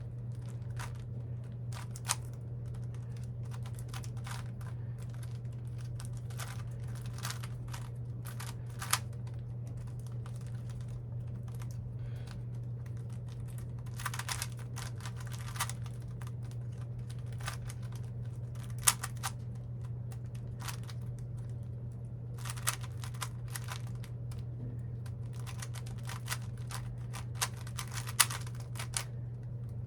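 A plastic Rubik's-type puzzle cube being turned quickly by hand: irregular clicking and clacking as the layers snap round, with a few sharper clacks, over a steady low hum.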